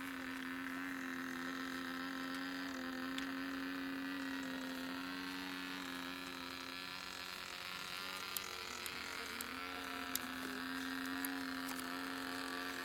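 Radio-controlled model airplane flying overhead, its small motor giving a steady buzzing drone that wavers slightly in pitch and fades briefly about seven seconds in before coming back. A few faint clicks come near the end.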